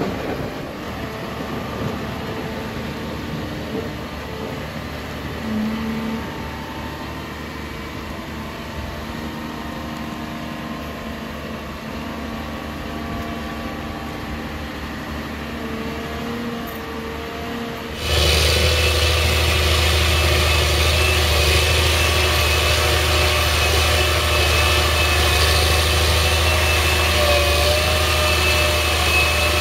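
Wheel loader's diesel engine running steadily while it pushes a dozer blade through gravel. About 18 seconds in, it gives way abruptly to a Challenger crawler tractor's engine working under load as it pushes soil, louder, with a deep steady hum.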